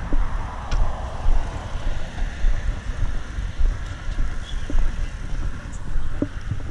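Wind buffeting the microphone in uneven, gusting rumbles, with road traffic going by.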